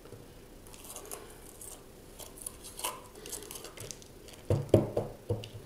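Small knife cutting and scraping inside a green bell pepper to remove the core and seeds, a run of light crisp clicks and scrapes. About four and a half seconds in come a few sharper knocks on the plastic cutting board.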